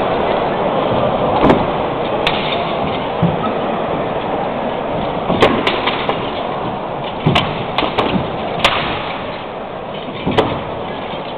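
Swords striking round shields and armour in a mock medieval fight: about ten sharp clacks at irregular intervals, several in quick succession in the middle. A steady crowd hubbub runs underneath.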